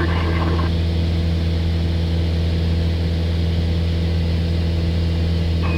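Steady drone of an aircraft's engine heard inside the cabin: an even low hum that holds the same pitch throughout.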